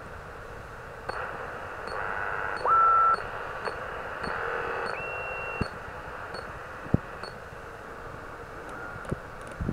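An Albrecht AE 485S 10–11 metre transceiver gives a steady receiver hiss in USB mode as its frequency is stepped across the band. There are two brief tones: a louder one about three seconds in and a higher one around five seconds. A few sharp clicks come as the front-panel buttons are pressed.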